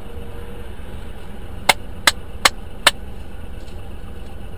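Steady low hum of a stationary car heard from inside its cabin, with four sharp clicks about 0.4 seconds apart near the middle.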